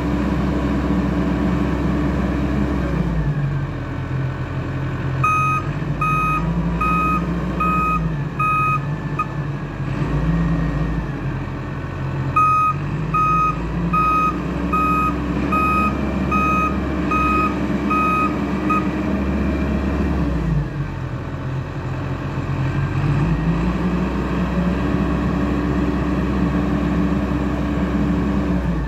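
Caterpillar 444 backhoe loader's diesel engine running, its note rising and falling as it works under varying load. Its reversing alarm beeps about twice a second in two spells of several seconds each in the middle.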